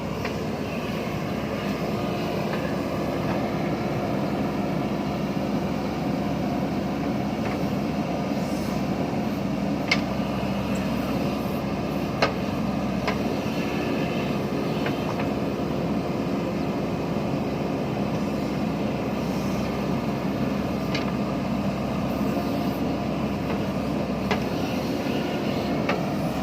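Diesel engine of a JCB backhoe loader running steadily while it digs, a constant drone with a few short sharp knocks scattered through.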